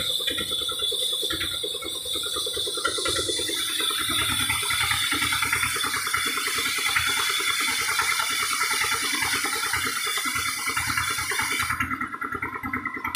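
An engine running steadily with a fast rattle. The high hiss in it drops away about a second before the end.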